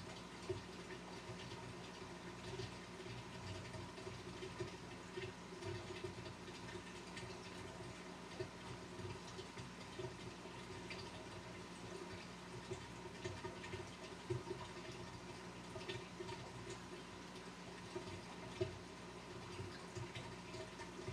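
Fish-room ambience: the steady hum of an aquarium pump under constant water trickling and bubbling, with occasional short pops.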